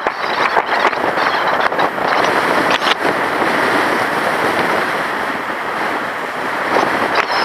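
Strong wind blowing across an open beach and driving sand along the surface, heard as a loud, steady rushing noise, with gusts now and then buffeting the microphone.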